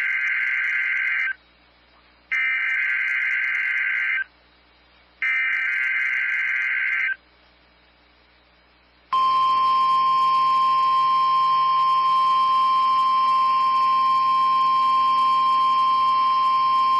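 NOAA Weather Radio weekly test alert. First come three harsh, buzzy bursts of EAS SAME header data, each about two seconds long with a second's gap between them. After a short pause, the steady 1050 Hz warning alarm tone starts about nine seconds in.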